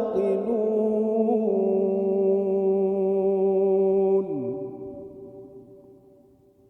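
A man's voice holding a long drawn-out note in melodic Quran recitation, the final held syllable of the verse. The pitch is steady, steps down once after about a second and a half, and breaks off with a short downward slide about four seconds in. A long echo then fades away.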